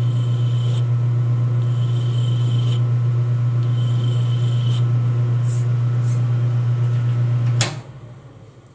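Metal lathe running with a steady low hum while a hand file scrapes against the spinning workpiece to chamfer its edge, in strokes of about a second, one every two seconds or so. Near the end the hum stops suddenly with a click and the chuck spins down.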